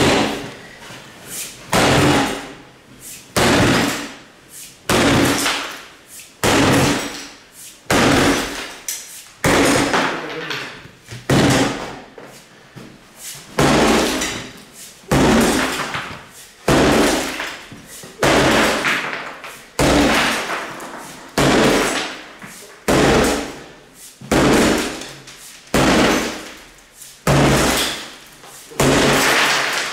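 Sledgehammer striking the top of a small metal wall safe over and over: heavy metallic bangs about every second and a half, each ringing briefly, with a short pause a little before halfway.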